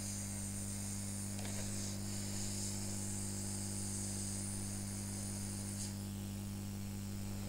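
Hot-air rework gun blowing a steady hiss of hot air onto a circuit board, over a steady low hum, while it reflows the solder under a surface-mount EEPROM chip so the chip settles onto its pads. The hiss stops about six seconds in.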